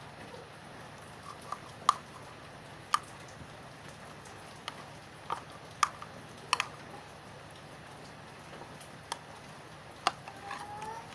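Sticky, freshly activated glue slime being squeezed and pulled by hand, giving about a dozen irregular wet clicks and pops; it is still sticky, not yet fully activated.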